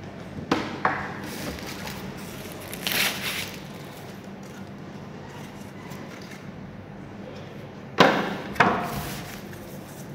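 Monitor stand parts and packaging being handled: two sharp knocks near the start, a brief rustle of packing about three seconds in, and two more knocks, the second ringing briefly, near the end.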